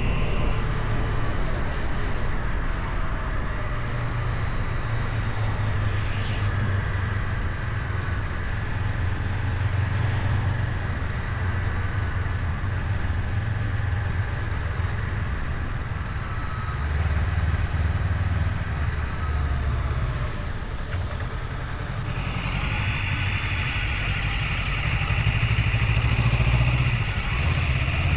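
Motorcycle engine running while riding, its low note swelling and easing with the throttle, under a steady rush of wind and road noise.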